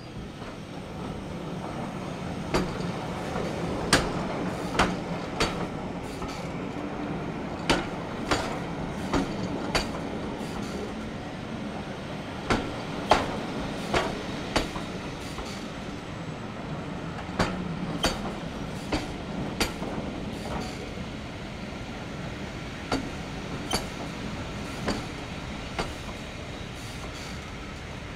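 Railway passenger coaches, Pullman cars among them, rolling slowly past with a steady rumble. The wheels click over rail joints in groups of two to four, one group every few seconds as each bogie crosses.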